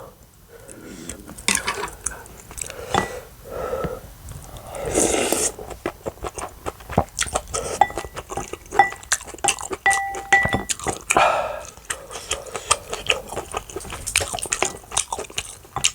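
Close-up eating sounds: chewing, smacking and slurping, with utensils clicking against a bowl and a few short metallic rings a little past the middle.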